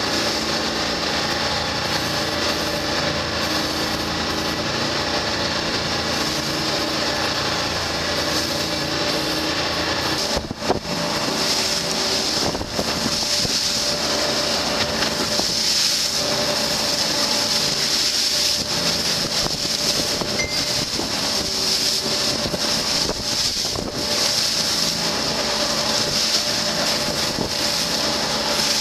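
Engines of a 44 ft motor lifeboat running steadily under way, a constant drone of engine tones. About ten seconds in the sound opens up and a loud steady hiss of wind and rushing water along the hull lies over the engine drone.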